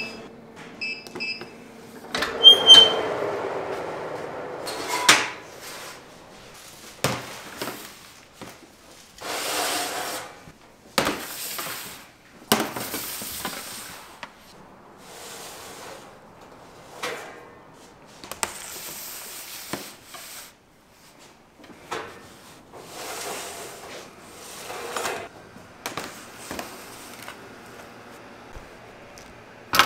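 Bakery work sounds: a loud clank with a ringing tail about two and a half seconds in, then a series of short rustling and scraping noises, one every second or two.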